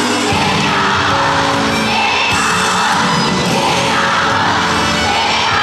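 Live concert music with a male singer, recorded from among the audience, with the crowd screaming and cheering loudly over it throughout.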